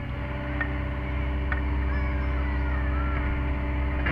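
Sany SY50U mini excavator's diesel engine running steadily, heard from inside the cab, with the sound swelling a little over the first second as the hydraulics take load while the boom and bucket work. A few light clicks sound over it.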